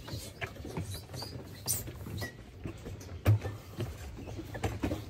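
Irregular scuffs and knocks of footsteps on walkway steps, mixed with the rub of a handheld phone, with one louder thump a little past halfway, over a steady low rumble.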